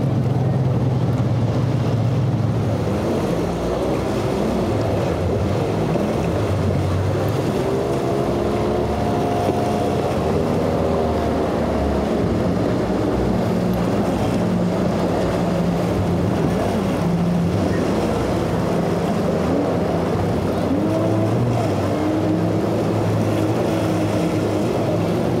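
Outboard motors on center-console boats running at speed through rough inlet water, the engine pitch rising and falling as the boats pass, over a steady rush of water and spray.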